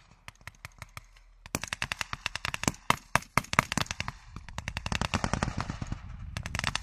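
Small-arms gunfire from several weapons, including machine-gun bursts: a few spaced shots over the first second and a half, then many overlapping shots.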